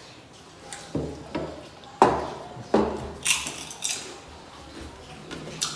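Metal plates and brass bowls clinking and knocking on a wooden table during a meal eaten by hand, with scattered single knocks, the sharpest about two seconds in. A couple of short hissing sounds come about three and four seconds in.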